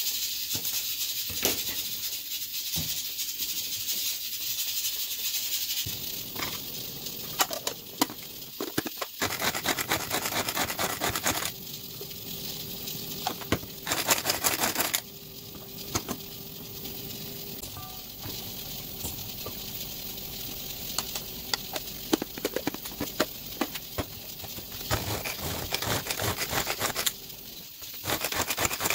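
Knife chopping scallions on a plastic cutting board, then a hand-pull mini food chopper run by its cord, its blades spinning with a rapid clicking rattle in several short runs, the loudest about halfway through.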